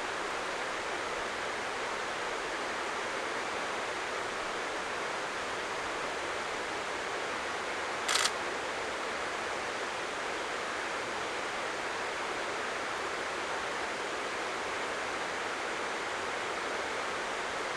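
Steady rushing of river water, an even noise with no pauses. About eight seconds in, one brief sharp burst of noise cuts across it.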